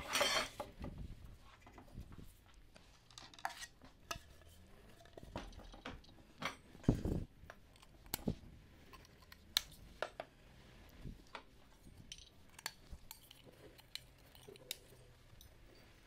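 Metal table-frame pieces clinking and knocking as they are handled and fitted together, with scattered sharp clicks and two louder bumps, one at the start and one about seven seconds in.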